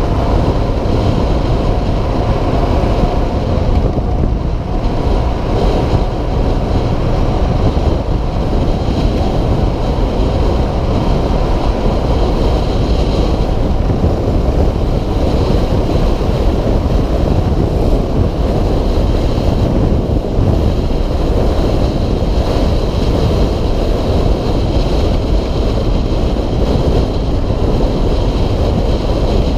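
Steady wind rush on the camera microphone at highway speed, mixed with the Suzuki DR650SE's single-cylinder engine running at a steady cruise.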